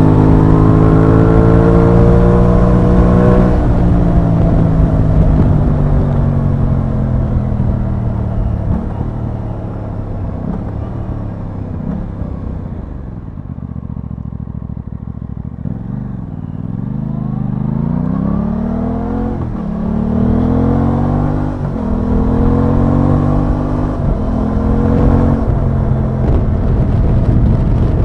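Aprilia Tuono 660's parallel-twin engine on the move. It revs, then winds down to a low, slow beat about halfway through, and picks up again in several rising sweeps, each cut short by a gear change.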